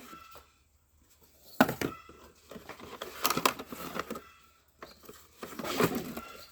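Packaging being opened by hand: irregular crinkling, tearing and clicking of plastic and cardboard as a cordless drill is unpacked, with a short quiet pause about a second in.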